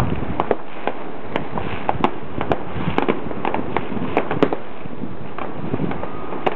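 Fireworks going off in a rapid, irregular string of sharp cracks and pops over a continuous din.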